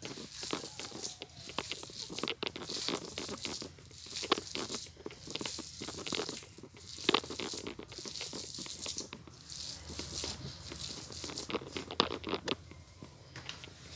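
Hands kneading and pressing raw ground meat on a plate: irregular wet squishing strokes, with a few sharper taps where fingers hit the plate.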